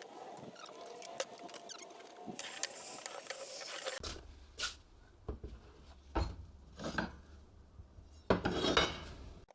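Tools and metal parts being moved around on a workbench: scraping and rubbing with scattered sharp clinks and knocks, loudest in a clatter near the end. A steady low hum comes in about four seconds in.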